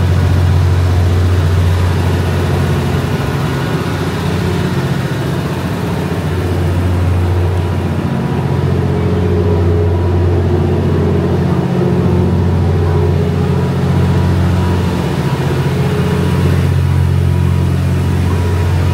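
JR West 87 series Twilight Express Mizukaze's diesel generator engines idling as the train stands at the platform: a loud, steady low hum with a few higher tones over it.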